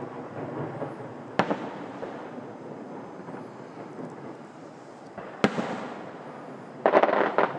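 Fireworks display heard from a distance: single sharp bangs about a second and a half in and again about five and a half seconds in, then a quick run of crackling reports near the end, over a continuous background of booms.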